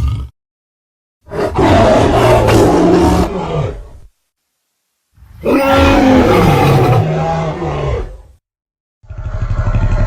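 Albertosaurus dinosaur sound effects. Two long, deep roars of about three seconds each are separated by short silences. Near the end a third, pulsing growl begins.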